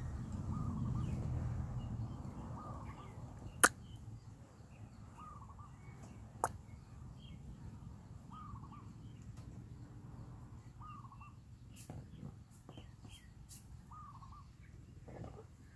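Two sharp clacks of small plastic toys being knocked together, a few seconds apart. Behind them a bird calls over and over, a short call every second or two.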